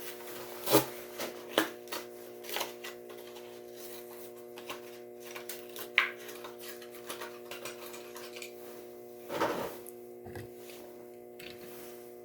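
Irregular clicks, taps and plastic crackling as a die-cast toy car's blister-card package is handled and opened, with a denser burst of crackling about nine and a half seconds in, over a faint steady hum.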